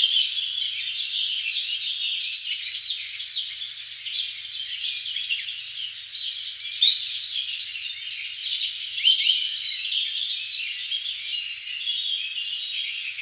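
A dense chorus of many small birds chirping and twittering, with overlapping high chirps throughout and no low sound beneath them.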